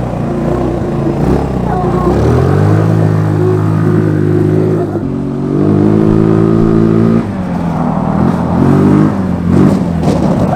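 GY6 150cc single-cylinder four-stroke scooter engine in a Power Wheels jeep go-kart, revving under way. The revs rise about two seconds in, hold, climb higher midway, drop off sharply, then rise and fall once more near the end.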